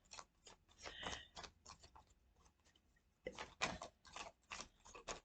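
Tarot cards being handled and shuffled: faint, irregular papery flicks and snaps, sparse at first and coming thicker from about three seconds in.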